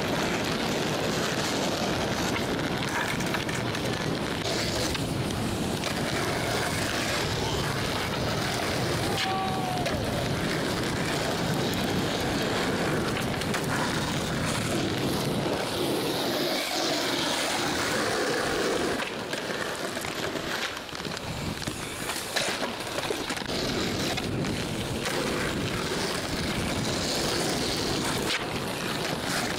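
Skateboard wheels rolling on asphalt, a steady rumbling hiss with wind on the microphone, broken a few times by short sharp clacks of boards popping and landing.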